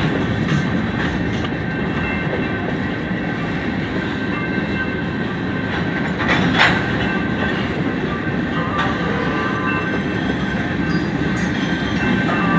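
A long train passing, its wheels rumbling steadily on the rails with a thin, steady squeal above. A single sharp clank comes about six seconds in.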